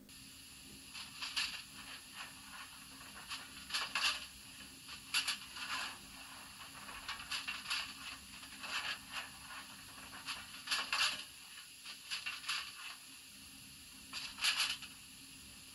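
Coal-shovelling sound effect from the digital sound decoder of a Jouef H0 model of the SNCF 140 C steam locomotive, played through the model's small speaker: short scrapes of a shovel in coal, often in pairs or threes, every second or two, over a steady hiss.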